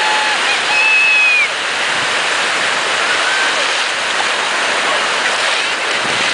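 Steady rush of breaking surf and whitewater, with a brief thin high tone, like a whistle, about a second in.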